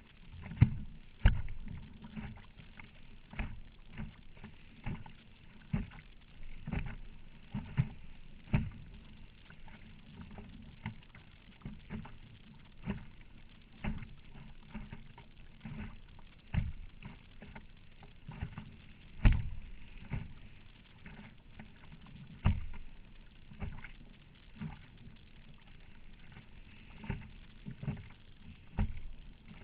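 Choppy water slapping against the plastic hull of a Perception Scooter sit-on-top kayak in a strong head wind: irregular dull thumps, roughly one a second, a few much louder than the rest.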